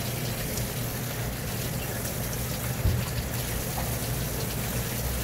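Steady rush of running water over a low hum, with a single dull thump about three seconds in.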